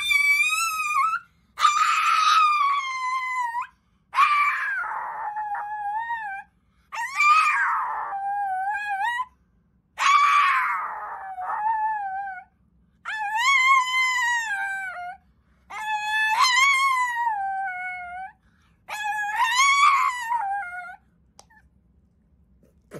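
Small dog howling: eight drawn-out, high-pitched howls of about two seconds each, every one starting high and sliding down in pitch with a wavering end, with short pauses between.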